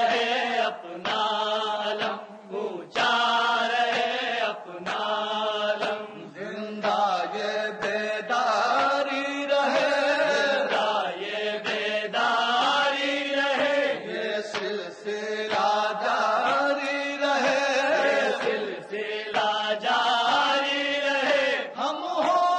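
Male voice chanting an Urdu noha, a Shia lament, in a long-held melody that rises and falls.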